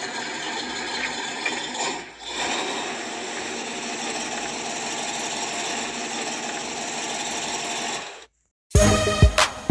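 Small electric motor and plastic gears of a toy tractor whirring steadily as it drags a loaded toy dump truck on chains, with a short dip about two seconds in. The whirr fades out and music starts near the end.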